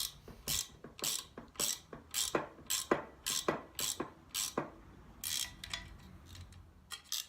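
Spanner turning a nut on threaded rod to pull a star nut into a steel or aluminium fork steerer tube. It makes sharp metallic clicks about twice a second, which thin out to a few scattered clicks after about four and a half seconds.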